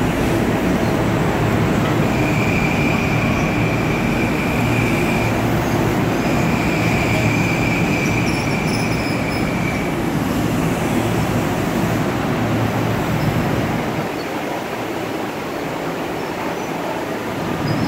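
Long Island Rail Road M9 electric multiple-unit train rolling along the platform, a steady rumble of motors and wheels on rail. A high steady squeal sounds twice in the first ten seconds, each for a few seconds, and the low rumble eases from about fourteen seconds in.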